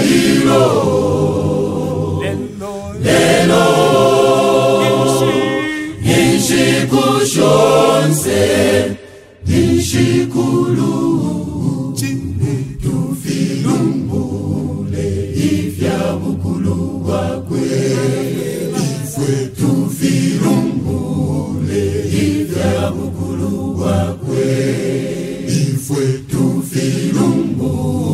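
Mixed gospel choir singing a cappella, held notes from many voices at once, with a brief break about nine seconds in before the singing picks up again.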